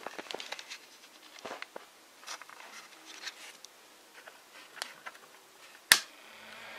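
Handling noise from a hand moving about close to the microphone: scattered light taps and rustles, with one sharp click about six seconds in. Music begins to fade in at the very end.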